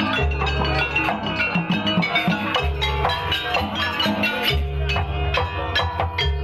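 Jaranan Buto gamelan accompaniment: hand drums and struck bronze metallophones playing a busy rhythm over long, low, booming gong tones that sound every second or two.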